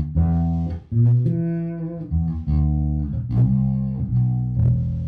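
Yamaha BB1100SF fretless electric bass played fingerstyle: a slow line of about six single plucked notes, each ringing on into the next.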